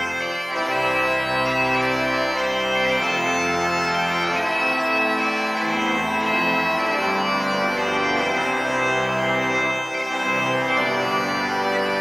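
Bagpipe and pipe organ playing together: a sustained bagpipe melody over organ chords whose bass notes change every couple of seconds.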